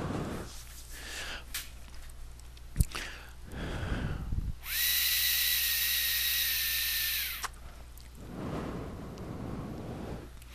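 Air drawn hard through a Youde Zephyrus rebuildable tank with its airflow closed down: a steady hiss with a faint whistling tone, lasting about three seconds. The restricted air slots make this noise; the tank is a little noisy with the air shut down. Breathy exhales of vapour come before and after the draw.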